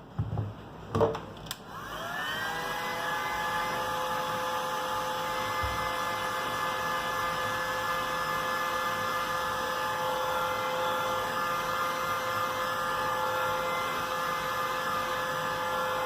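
A few handling knocks, then a small electric motor spins up about two seconds in and runs steadily with an even whine.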